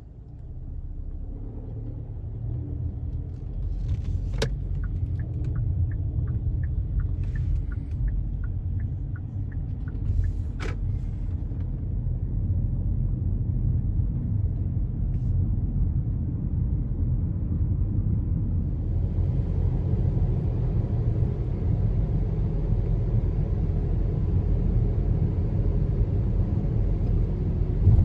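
Low, steady rumble of a car driving, with two sharp clicks and a run of light, evenly spaced ticks in the first third. About two-thirds of the way through, the road noise grows louder and brighter.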